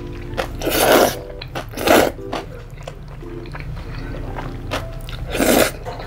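A person slurping jjajangmyeon noodles, black-bean-sauce noodles, off chopsticks: three loud slurps about one, two and five and a half seconds in, with quieter chewing and mouth sounds between.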